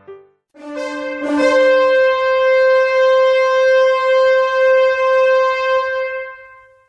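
A single long horn call. It opens on a lower note with two sharp blasts, breaks upward to a higher note, holds it steady for about five seconds, and then fades out.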